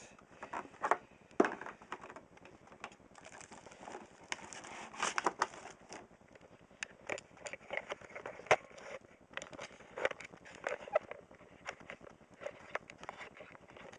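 Clear plastic packaging tray and cardboard box being handled, giving irregular crackles, crinkles and clicks, one sharper click about eight and a half seconds in.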